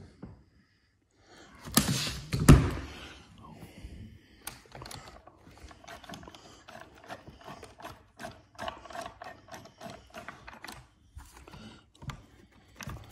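A 30 Degrees North DTT 1/5-scale RC truck being turned over and set down, with a couple of heavy thumps about two seconds in, then a long run of small clicks and rattles as its chassis parts are handled.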